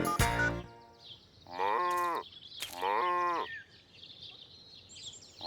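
A farm animal calls twice, about a second apart. Each call is drawn out, under a second long, and falls slightly in pitch. A short music jingle ends in the first second.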